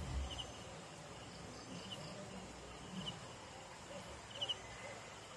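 Crickets chirping faintly: short chirps of two or three quick pulses, about one every second or so, over a low steady hiss.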